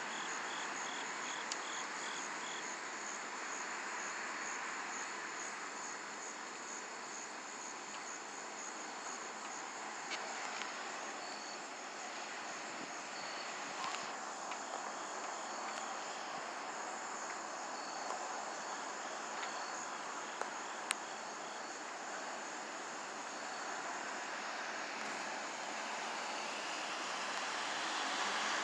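Night insects, crickets, chirping steadily: a fast high pulsing trill with other short, spaced chirps lower down, over a steady background hiss.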